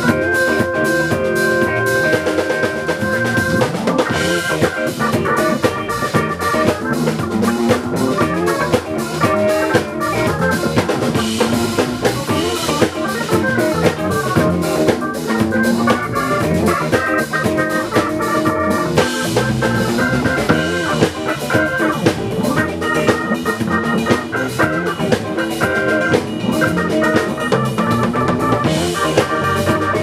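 Live band playing an instrumental passage, a drum kit keeping a steady beat under sustained pitched instruments.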